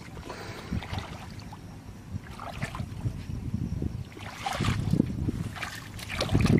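Bare feet wading through shallow muddy water, with irregular splashing and sloshing at each step that grows louder near the end.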